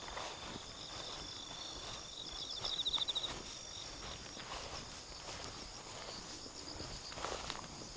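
Insects such as crickets trilling steadily in high, rapid pulses, with one louder trill from about two and a half to three seconds in, over a few faint footsteps.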